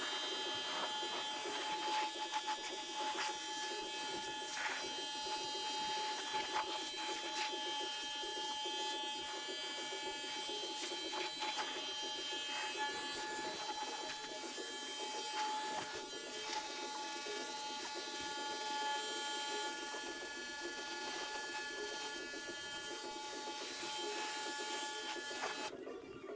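A steady whirring hum with a constant high tone and frequent scattered clicks, like fast-forwarded work sounds. It breaks off briefly near the end.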